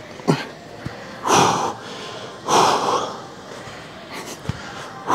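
A man's hard, forceful exhales as he strains through the last reps of a set of pull-ups: two big puffs of breath about a second apart, with weaker breaths around them.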